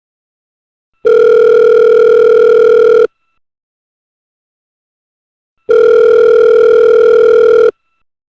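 Telephone calling tone: a steady, low-pitched beep lasting about two seconds, heard twice with about two and a half seconds of silence between.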